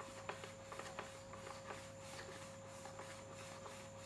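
Tissue rubbing back and forth over the thermal print head of a receipt printer as it is wiped clean of the dirt that makes prints fade: a quick run of faint scratchy ticks that thins out after about two seconds. A steady hum runs underneath.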